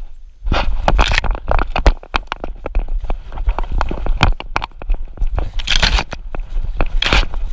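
Irregular crackling, scraping and knocking from a camera worn by a dog as it pushes through woodland undergrowth: leaves, ferns and twigs brush the camera while its mount jostles. Under it runs a low rumble, with louder bursts of rustling about a second in and again near the end.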